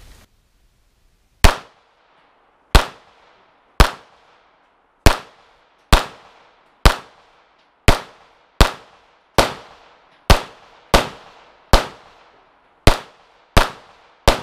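Beretta 92FS 9mm pistol fired fifteen times in steady rapid succession, roughly one shot a second, each a sharp crack with a short echoing tail.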